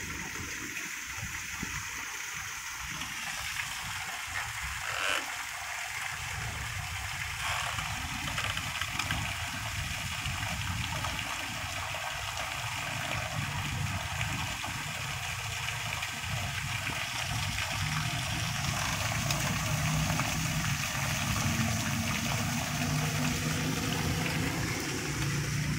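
Heavy rain falling steadily onto a flooded yard, drops splashing into standing water as a constant hiss. About a quarter of the way in, a low rumble joins it, and in the second half a steady low drone builds until the end.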